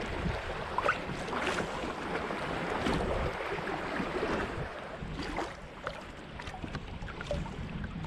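Water sloshing and splashing around a moving kayak's hull, with repeated splashes from paddle strokes, louder in the first half. A low wind rumble on the microphone runs underneath.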